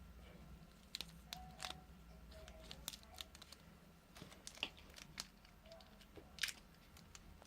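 Faint crinkling and tearing of small plastic toy packaging, with scattered sharp clicks.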